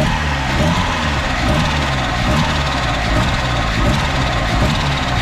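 Boosted Mazda Miata's four-cylinder engine idling steadily with the hood open.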